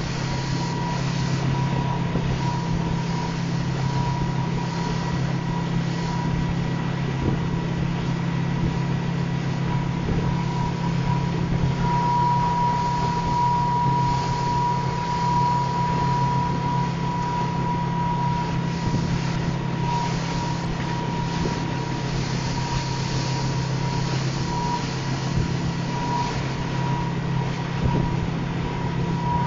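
Motorboat engine running steadily at towing speed, a constant low drone with a steady high whine over it, together with the rush of the wake and wind buffeting the microphone.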